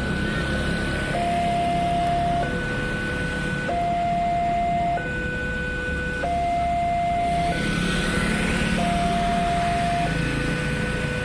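Railway level-crossing alarm sounding from its horn loudspeaker: an electronic two-tone signal swapping between a higher and a lower tone, each held about a second and a quarter, the warning that a train is due while the barriers are down. A low rumble runs underneath.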